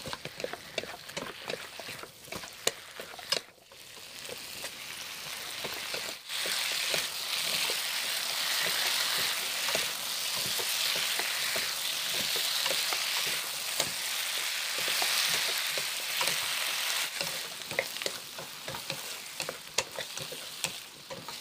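Fried tofu and vegetables sizzling in soy-based sauce in a non-stick wok while two wooden spatulas stir and toss them, with scraping and light clicking of the spatulas against the pan. The sizzle is steadier and louder in the middle, with more spatula clicks at the start and near the end.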